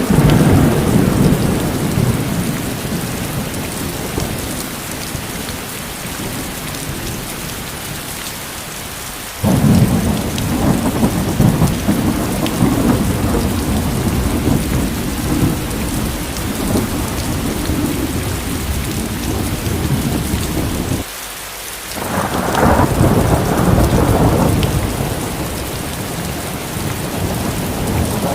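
Rain falling steadily with rolling thunder. The first long rumble fades over the opening seconds, a second starts suddenly about ten seconds in, and a third builds after a brief lull a little past the twenty-second mark.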